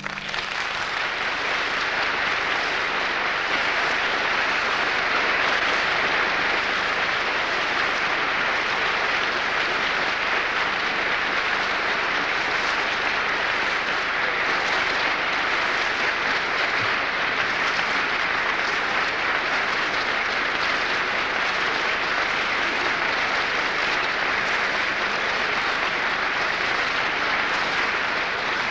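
Large audience applauding in a concert hall, a dense, steady applause that holds at an even level throughout.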